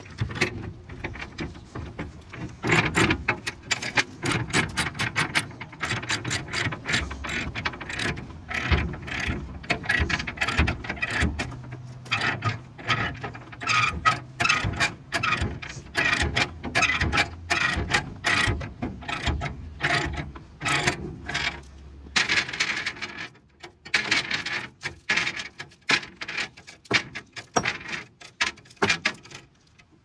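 Ratchet chain binder being cranked to tighten a tie-down chain, its pawl clicking in rapid runs of strokes broken by short pauses.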